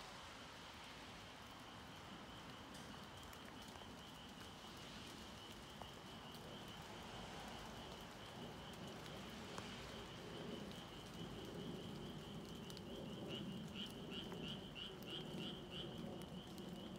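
A faint, steady chorus of frogs calling in a high, trilling band, with a run of distinct pulsed calls about three a second near the end.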